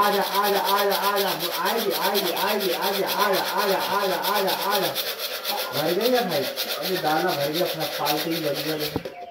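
A man's voice calling chicks to feed with a rapid repeated sing-song "le le le", the pitch rising and falling in arches. It cuts off near the end.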